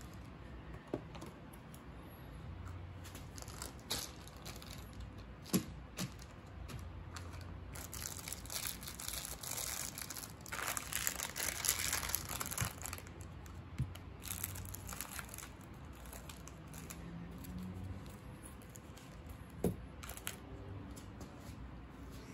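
Packaging crinkling while parts are handled, loudest for a few seconds around the middle, with a few sharp clicks and taps.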